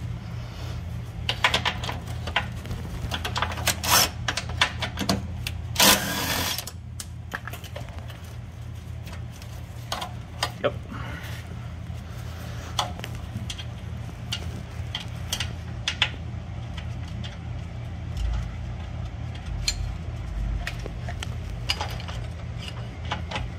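Tools clicking and clanking on metal as a 13 mm brake line bracket bolt is loosened, with a short rushing burst about six seconds in, over a steady low hum.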